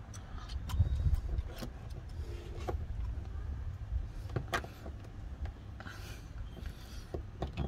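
Plastic trim-removal tool prying and scraping at a plastic push-pin clip on a car's wheel-well liner, giving scattered sharp clicks, over a low rumble.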